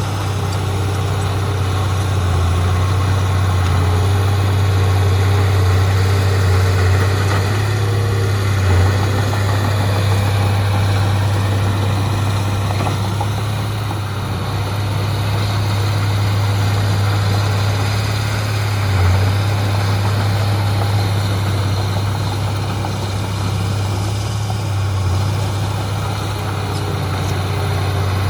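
Heavy diesel engine running steadily with a deep, even hum, with brief louder moments three times.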